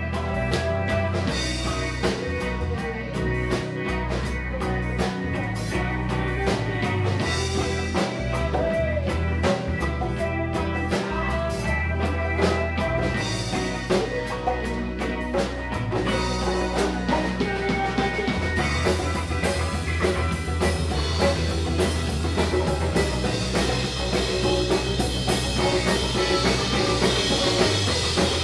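Live reggae band playing a song, with drum kit, congas, electric guitar, keyboard and bass guitar. The cymbals grow brighter over the last several seconds.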